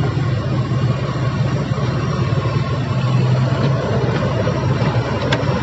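Diesel engine of heavy tracked construction equipment running steadily, a deep even hum under a busy mechanical din. A short click sounds near the end.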